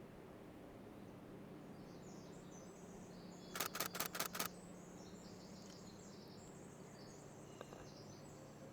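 A wren singing a long, high, jumbled song, with a quick burst of five camera shutter clicks about three and a half seconds in.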